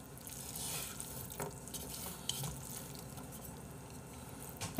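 Wooden chopsticks stirring and mixing sauced instant black-bean noodles in a bowl: a faint wet, slippery churning with a few light clicks.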